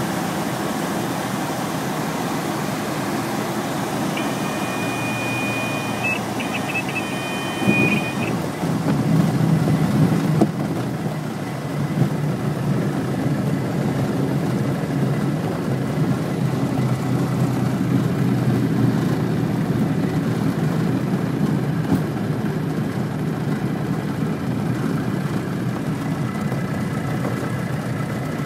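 Robin DR400's light-aircraft piston engine running steadily, heard from inside the cockpit. A short high-pitched electronic tone sounds in two parts a few seconds in, and the engine gets a little louder about eight seconds in.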